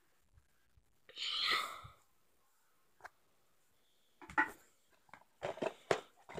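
A breathy exhale about a second in, then a few short knocks and bumps as a phone is handled and moved.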